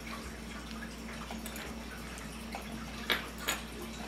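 Steady low electrical hum with two sharp clicks about half a second apart near the end.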